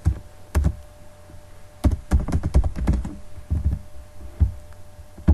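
Computer keyboard being typed on: a couple of single keystrokes, then a quick run of several keystrokes in the middle, then a few more spaced-out taps.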